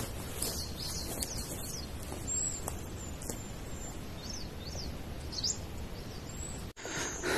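Small birds calling: thin high whistles early on, then a quick run of short chirps about halfway through, over a steady low rumble.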